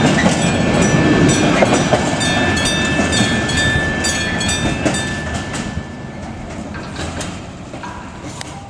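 Freight wagons rolling past, wheels clacking over the rail joints, the rumble fading steadily as the end of the train moves away. Short, evenly repeated high tones sound over it, typical of a level-crossing warning bell.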